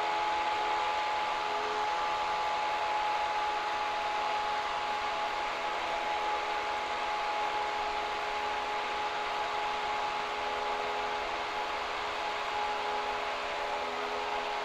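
Cessna 172's four-cylinder piston engine and propeller making a steady drone inside the cockpit in flight: an even roar with a few steady tones through it.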